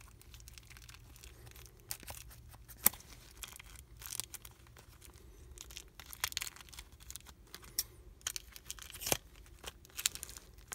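Duct tape and plastic wrapping being cut with scissors and torn open, crinkling and crackling, with a few sharper clicks.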